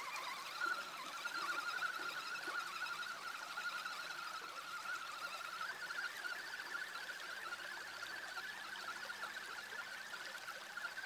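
Waterproofed radio-controlled car's electric motor whining steadily with a slightly wavering pitch as it drives through a shallow stream, over the rush of running water.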